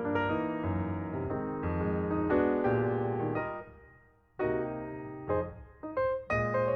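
Background music: an electric piano playing chords over a bass line. It fades out a little past halfway and starts up again about a second later.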